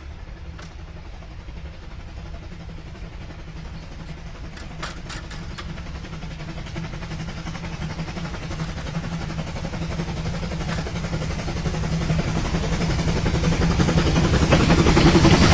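G-scale garden model train approaching on its track: a steady motor hum with a few rail clicks, growing steadily louder.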